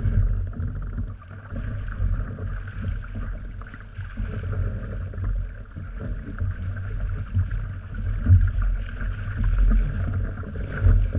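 Wind rumbling over the microphone in uneven gusts, over the wash of water around a small sailing dinghy.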